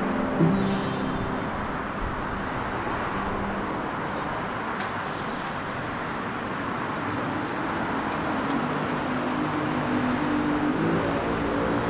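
Steady background noise of road traffic, an even rush with no distinct events.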